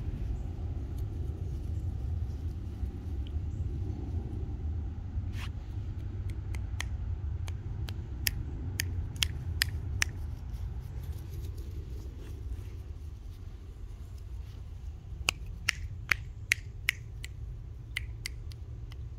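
Sharp, short clicks, scattered singly and in quick runs, over a steady low rumble; the loudest run of four or five clicks comes about three-quarters of the way through.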